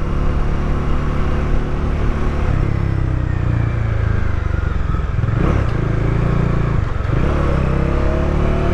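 Bajaj Dominar 400's single-cylinder engine running under way. The engine note dips twice around the middle and rises again near the end.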